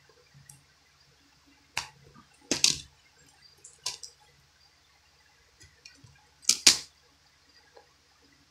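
Plastic Blu-ray case being opened and handled: a handful of sharp clicks and snaps, the loudest about two and a half seconds in and again near seven seconds.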